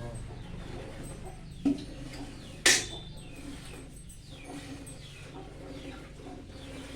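Chickens clucking with short calls throughout. A dull thud comes about one and a half seconds in, and a sharp knock, the loudest sound, about a second later.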